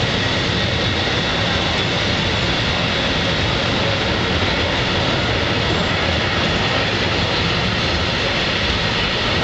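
Vintage steam-train passenger carriages rolling past along the platform: a steady, even rumble of wheels on rail.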